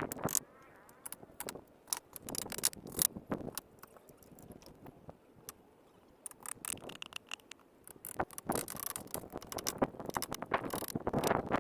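Irregular clicks, knocks and scrapes of hand work, growing busier and louder near the end.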